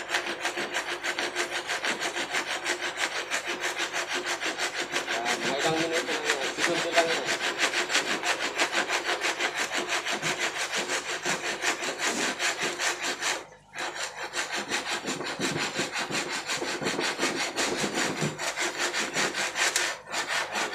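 Large coarse-toothed handsaw cutting through wooden picture-frame molding in quick, even back-and-forth strokes. The sawing stops briefly about 13 seconds in, then resumes until it stops near the end.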